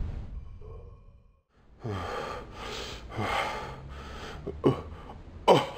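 A man breathing heavily in bed: a run of long, labored breaths about one a second, then a sharp gasp near the end.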